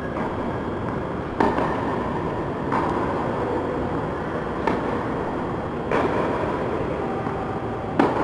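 Tennis rally on an indoor court: five sharp knocks of racket on ball, about one to two seconds apart, echoing briefly in the hall, over a steady background hiss.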